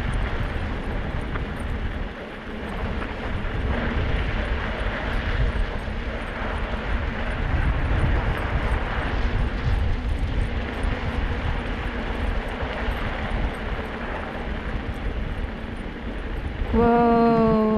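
Steady rolling noise of a Kickbike Fat Max kick scooter's wide tyres on a packed-snow road while two dogs pull it. Near the end, a short held pitched call that falls away.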